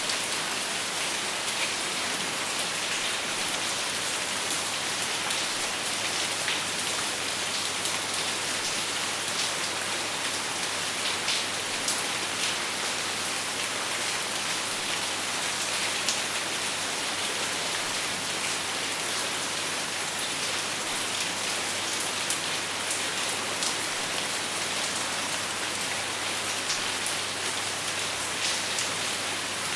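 Steady rain without thunder falling on a surface, an even hiss with scattered individual drops ticking throughout.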